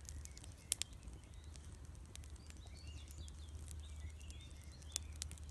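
Wood fire crackling, with scattered sharp pops, the loudest a little under a second in and another near the end. Faint bird chirps in the background.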